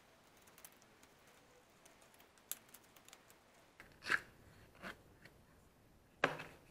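Faint clicks and taps, then three short rustling scrapes in the second half as stiff pieces of an old leather knife sheath are handled and rubbed against each other.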